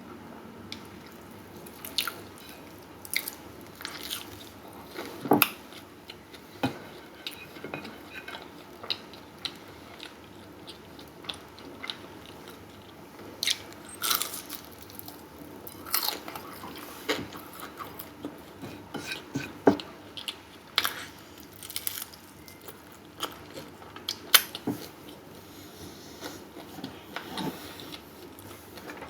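Close-up sounds of a person biting and chewing food, an irregular run of short, sharp mouth clicks and smacks.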